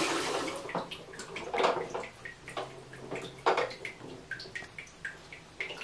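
Bathwater splashing and dripping in short, irregular bursts as small children play with plastic toys in a tiled bathtub.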